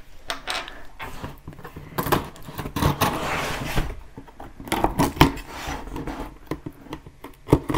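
Packing tape on a cardboard box being slit open with a small cutter: a scraping, tearing stretch a couple of seconds in, with knocks and rustling of the cardboard as the box is turned and handled.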